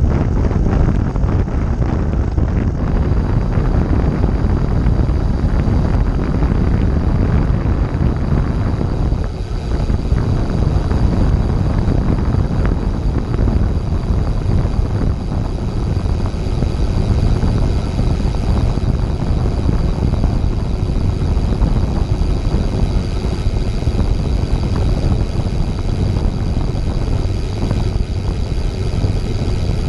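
Road bike in motion: heavy wind rumble on the microphone and tyre noise, over which a Novatec rear hub's freewheel ticks rapidly as the bike coasts, its pawls blurring into a fast buzz.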